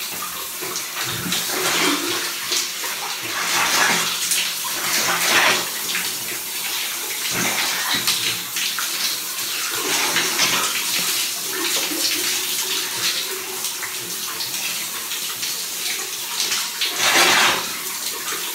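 Shower water running and splashing over a person's body, the splashing rising and falling as he moves under the spray.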